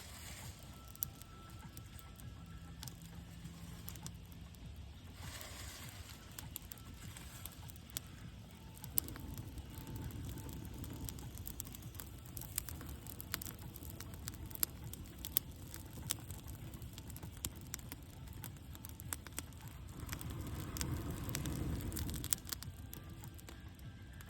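Small fire of twigs and leaves crackling, with scattered sharp pops over a low rushing sound that swells about twenty seconds in.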